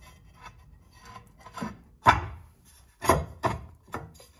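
A loose patterned floor tile being pushed and slid into the fireplace hearth recess, scraping against the hearth and the edge of the floorboards, then several sharp knocks as it is settled into place, the loudest about two seconds in.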